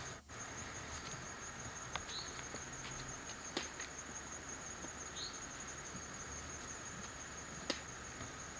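Steady high-pitched chorus of insects in outdoor ambience, with two sharp clicks, one about three and a half seconds in and a louder one near the end.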